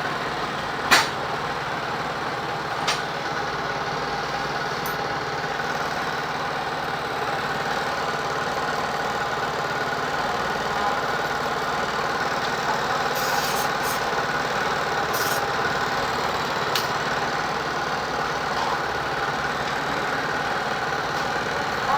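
A steady mechanical hum like an idling engine, with a few sharp clicks: a loud one about a second in, another about three seconds in, and a cluster in the second half.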